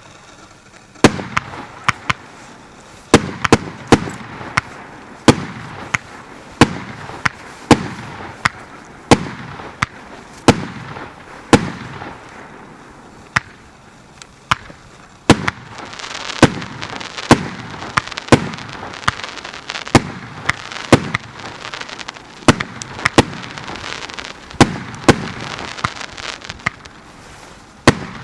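Consumer firework battery (multi-shot cake) firing: a run of sharp bangs, one or two a second, beginning about a second in, with a crackling hiss filling the gaps more thickly in the second half.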